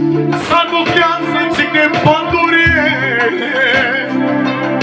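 A man sings a Romani song into a microphone, with wavering, ornamented vocal lines, over amplified backing music with steady bass notes and percussion hits.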